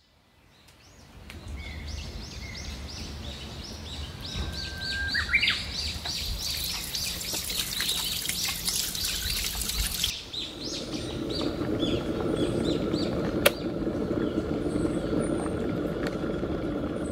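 Small birds chirping and twittering over and over, with tap water running over hands in the later part. About ten seconds in, the water cuts off and a steady rushing noise takes over: an electric kettle heating water.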